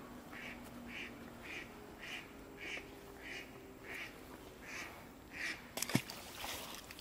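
A bird calling in a regular series, about two short calls a second. Near the end, a splash as a released perch lands in the canal water, the loudest sound.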